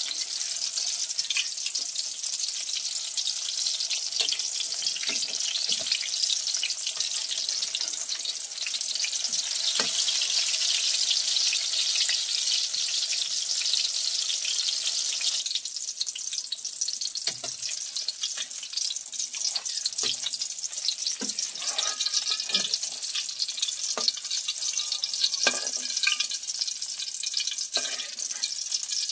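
Luffa (patola) fritters deep-frying in hot oil in a metal wok: a steady, dense sizzle that is strongest in the first half and eases about halfway through, with scattered light clicks and taps after that.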